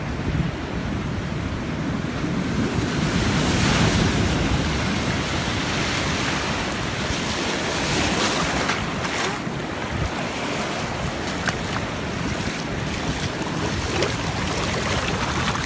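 Ocean surf: waves breaking and washing in, with wind buffeting the microphone. The surf swells to its loudest about four seconds in.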